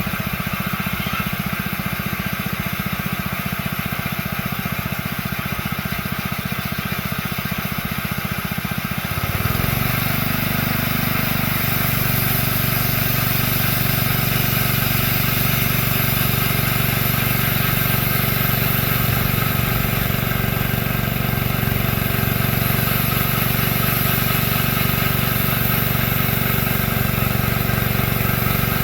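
Small engine running a homemade bandsaw mill. It steps up in speed and gets a little louder about a third of the way in, with a high hiss added, then runs steadily at the higher speed.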